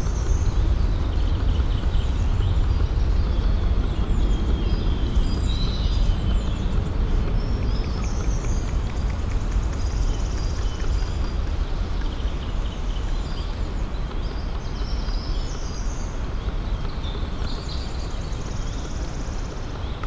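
Woodland ambience: a steady low rumble with songbirds chirping and calling on and off above it.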